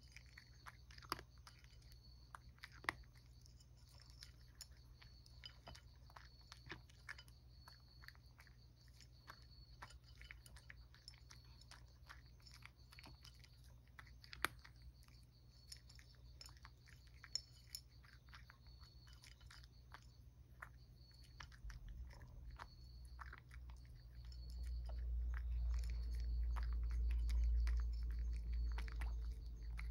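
Cat chewing crunchy Churu-coated cat treats, with sharp crunches scattered throughout. A low rumble rises in the last few seconds and is the loudest sound there.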